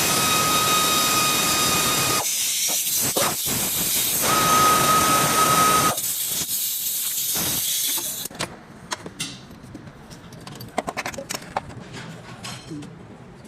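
Compressed air hissing loudly with a steady whistle, in two long blasts that cut off sharply, then a stretch of hiss. After that, light metallic clicks and clinks of tools on metal.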